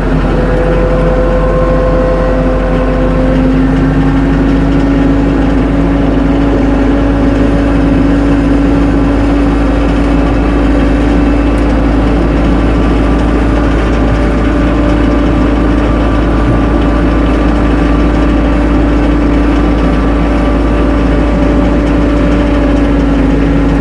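Tractor engine running steadily at working speed, with a steady whine that climbs a little in pitch over the first few seconds and then holds.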